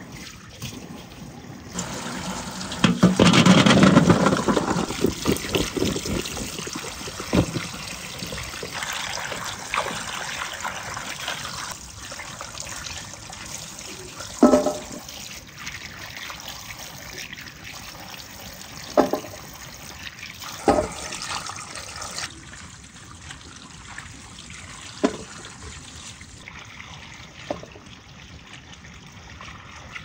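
Water pouring from a spout and splashing over hands as they scrub potatoes above a metal colander, loudest a few seconds in. A few sharp knocks stand out over the steady splashing later on.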